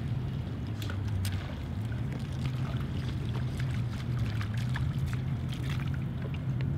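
Water lapping and splashing against a small boat's hull over a steady low rumble, with scattered light clicks and ticks.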